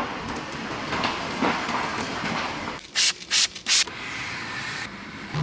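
A cloth rubbing and wiping a car's leather armrest. About three seconds in, three short, loud hisses come in quick succession.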